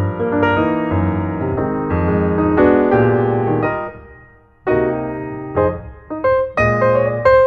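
Background piano music: held chords that fade away around four seconds in, then fresh notes struck after a short gap.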